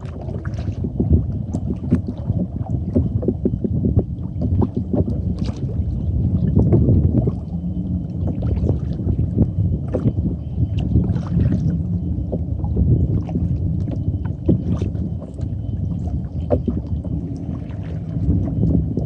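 Kayak paddling: water splashing off the paddle blades in many small irregular splashes, over a steady low rumble.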